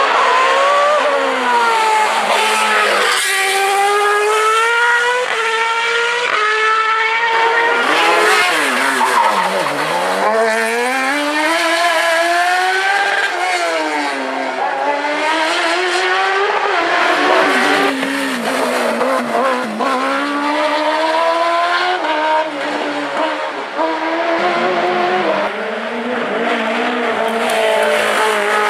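Hillclimb race car engine at full throttle: the revs climb and drop back sharply at each gear change, fall to low revs for tight bends and pull back up, with some tyre squeal.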